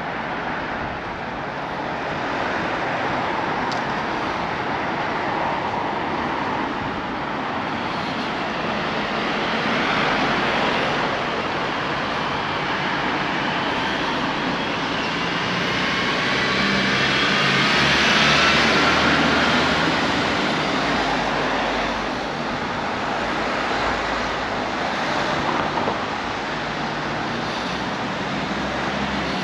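Road traffic passing on a street, cars driving by. About two-thirds of the way through, one vehicle pulls away with a rising engine note, the loudest moment.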